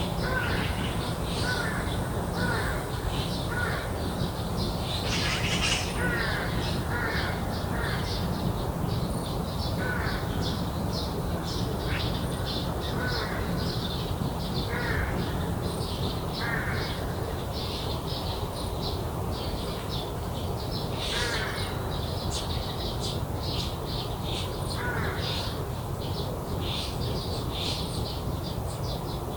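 Crows cawing in repeated calls amid constant chirping of small birds, over a steady low background rumble.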